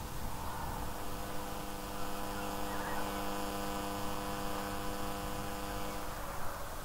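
Diesel locomotive engine running steadily: a steady hum of several even tones, the higher ones fading near the end.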